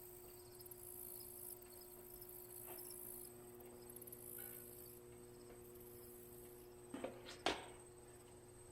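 Faint steady hum and high hiss of room tone, with two short clicks about seven seconds in.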